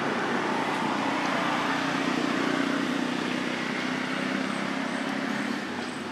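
A motor vehicle's engine running with a steady low hum under a steady outdoor hiss, the hum fading away near the end.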